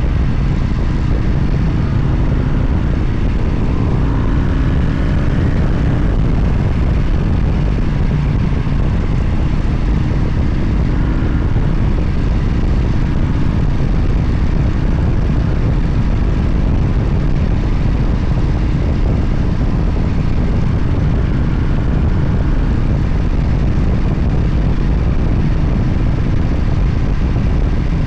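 Motorcycle running at a steady cruise under a heavy, constant rush of wind on the microphone, the engine drone shifting only slightly in pitch.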